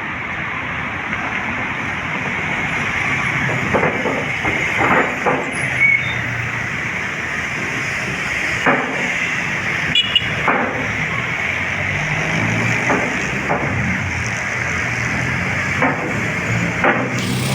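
Steady city road traffic noise, with about ten sharp knocks or clacks scattered irregularly through it.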